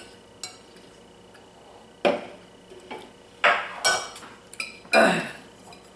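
Eating utensils clinking and scraping against a bowl of noodles: a few separate sharp clinks with a short ring, starting about two seconds in.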